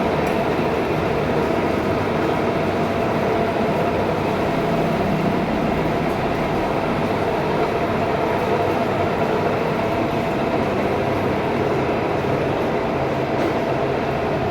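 A large Chinese-made 1000 x 3000 metal lathe running, a steady mechanical drone with a few held tones over a low rumble.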